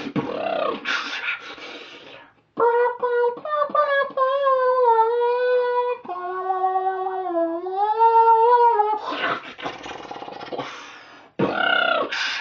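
Mouth sounds made into cupped hands. Breathy, beatbox-like noises give way to a sustained pitched tone of about six seconds: it holds one note, drops to a lower note, dips and comes back up, then breaks back into breathy noises near the end.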